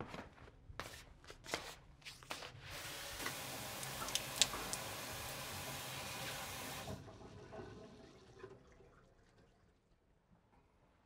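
A few light knocks and steps, then water runs for about four seconds, stops abruptly and trails off.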